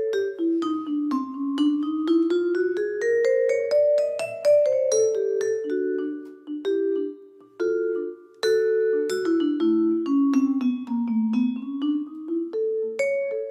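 Jazz vibraphone solo: quick runs of mallet-struck, ringing notes climbing and falling, with a brief pause about eight seconds in.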